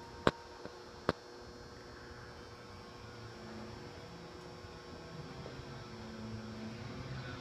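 Steady electrical hum, broken in the first second and a half by two sharp knocks about a second apart.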